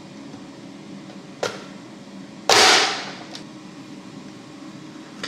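Manual press-down vegetable chopper dicing a tomato: a small click, then about a second later one loud, sharp snap, fading over about half a second, as the lid is pressed down hard and forces the tomato through the grid blade.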